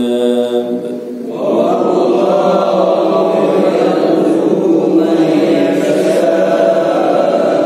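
A man reciting the Quran in Arabic in a slow melodic chant (tilawah), with long held notes. There is a short breath pause about a second in, then a new long sustained phrase.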